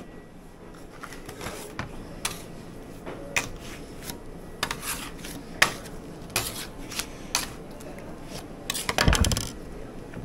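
Scattered clinks and taps on a steel table as gloved hands fold a mass of hot green hard candy over on itself, with a heavier thump and rustle about nine seconds in.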